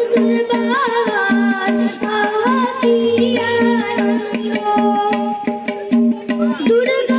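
A boy singing to his own harmonium accompaniment, with a tabla keeping a steady, even rhythm beneath.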